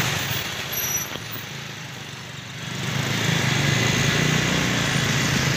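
Two-wheeler engines running in slow traffic on a wet road: a steady engine hum over a haze of traffic noise, dipping quieter about a second in and picking back up at around three seconds.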